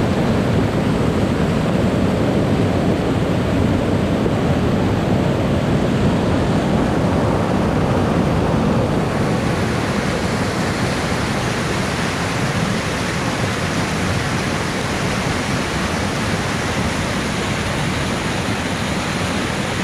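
Mountain stream in flood after heavy rain, a muddy torrent rushing and churning over rocks in a steady, loud wash of water noise. About halfway through the sound turns brighter and hissier.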